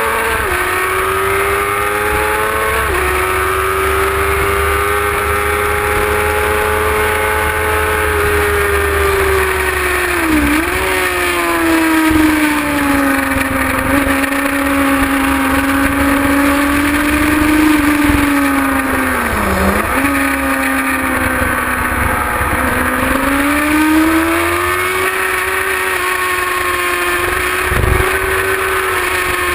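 Kawasaki ZX-6R's inline-four engine running hard at high revs, heard from a camera on the bike, with wind buffeting the microphone. The engine note holds fairly steady, with short drops in pitch near the start and about three seconds in, and sharp dips that climb back up about ten and about twenty seconds in.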